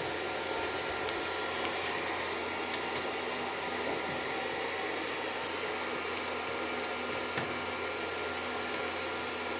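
Steady, even hiss of background noise with a faint thin tone held underneath and a few light clicks.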